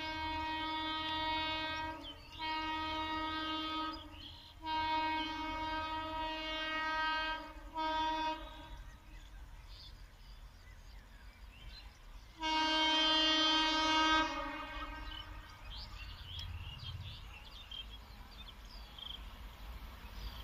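WAP-7 electric locomotive's air horn sounding on one steady note: three long blasts and a short toot in the first eight seconds, then another long blast after a pause of about four seconds. A low rumble of the approaching train follows.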